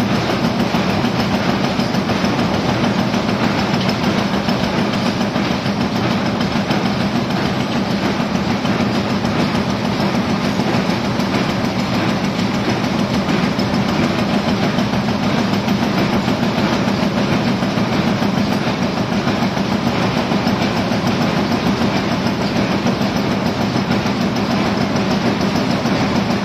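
Guoyi GY-25 25-ton high-speed punch presses stamping parts from coiled metal strip: a steady, dense, rapid clatter of strokes over a low hum.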